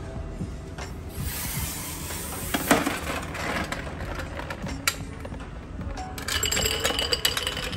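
Metal scoop digging into a bin of chocolate-coated balls and pouring them into a small glass jar: a rattle of chocolates with scattered sharp clinks against the glass, the loudest about two and a half seconds in.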